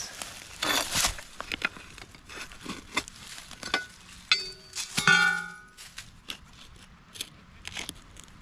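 Digging with a shovel: scrapes and knocks of the blade in soil, then two ringing metallic clangs about four and five seconds in as the blade strikes stone. The second clang is the loudest and rings briefly.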